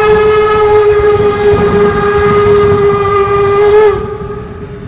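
Steam locomotive whistle blowing one long, steady blast that cuts off about four seconds in, over the low rumble of the working train.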